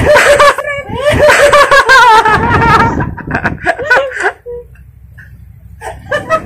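A woman laughing hard in quick, high-pitched, wavering bursts that die down about three seconds in, with a few brief laughs near the end.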